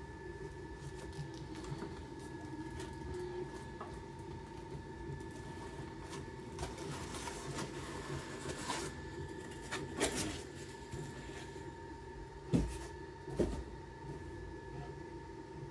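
A white foam packing insert scraping and rustling as it is worked loose and lifted out of a laser engraver's enclosure, with three knocks in the second half.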